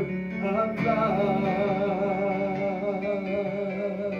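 Live worship song: a singer holds the word 'above' as one long note with vibrato over instrumental accompaniment.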